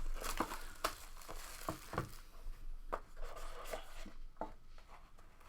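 A trading card box's wrapper being torn open and crinkled, with short sharp clicks and taps as the box and cards are handled.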